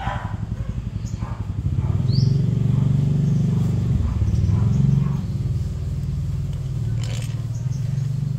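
A motor vehicle's engine running with a low, fast-pulsing rumble that grows louder about two seconds in. A dog barks once at the very start, and a bird chirps briefly.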